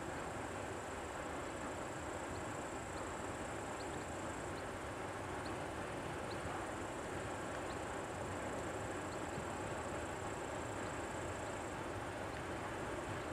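TEM18 diesel shunting locomotive engine running with a steady rumble, while an insect keeps up a high steady trill that breaks off about four seconds in and again near the end. Faint short high chirps sound now and then.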